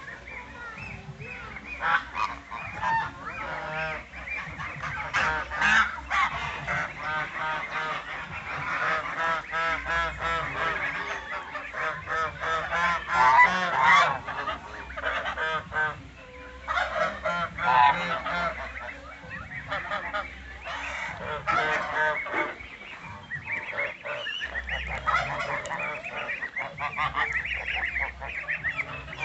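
A flock of domestic geese honking and calling, many short calls overlapping almost without pause.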